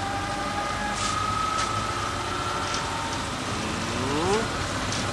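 Steady running noise of a vehicle heard from inside, a low hum with a faint held whine, and a short rising whine about four seconds in.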